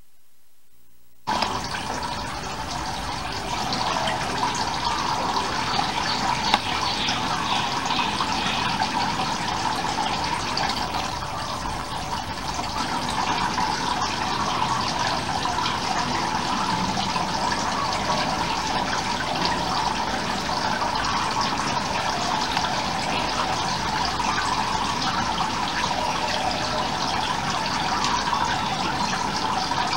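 Aquarium water running and splashing steadily, starting suddenly about a second in. There is a single short click about six seconds in.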